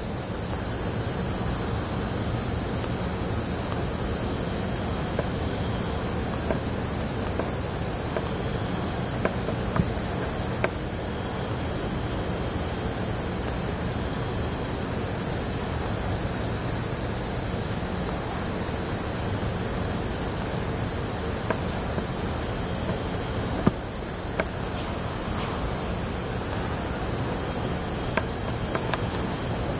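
Insects trilling in a steady, high-pitched chorus, with a continuous low rumble underneath.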